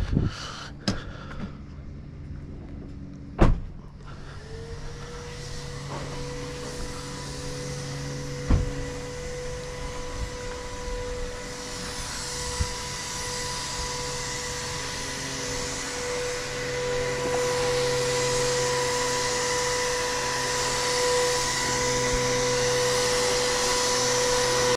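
A few knocks, then a motor starts about four seconds in, quickly rising to a steady hum that holds, with a hiss that grows louder toward the end.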